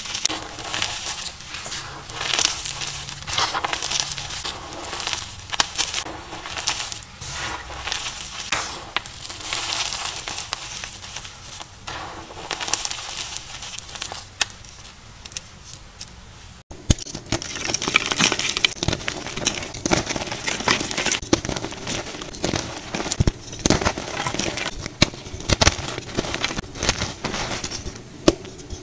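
Dyed gym chalk being crushed and crumbled by hand: dense, irregular crunching and crackling as the soft blocks break up and the crumbs sift through the fingers. A little past halfway the sound cuts abruptly to a fuller, deeper crunching of another batch.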